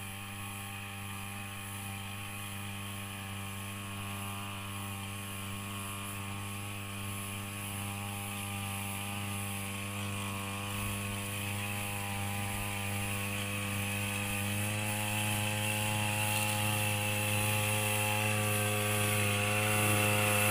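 Small engine of a backpack power sprayer running at a steady speed while it sprays a mist over crops, slowly getting louder as it comes closer.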